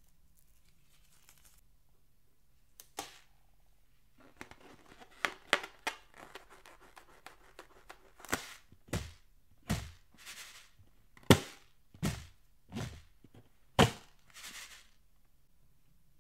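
Hands squeezing and handling a rubber balloon: after a quiet start, scattered small rubbery squeaks and clicks, then a run of louder sharp squeaks and pops, under a second apart.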